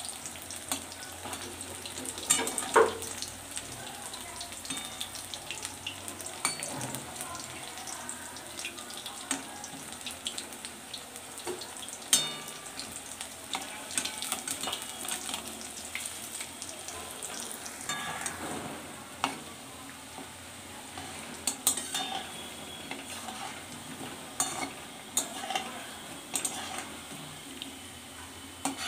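Gram-flour fritters deep-frying in vegetable oil in a steel kadai, a steady sizzle, with a steel spatula clinking and scraping against the pan now and then as the fritters are turned over.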